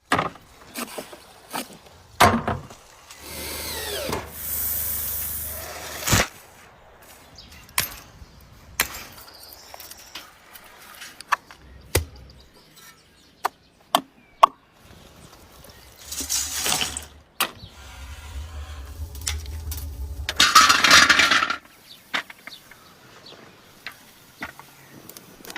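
Scattered sharp knocks and clicks, with a few longer hissing, rushing bursts: one about three seconds in lasting a few seconds, and two more later on, the loudest around twenty-one seconds.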